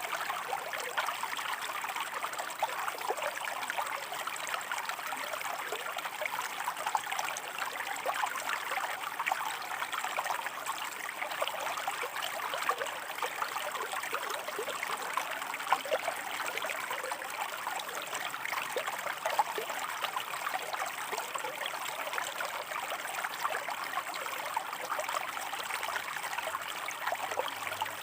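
Shallow stream running steadily over rocks, a close, even babble with many small splashes and trickles.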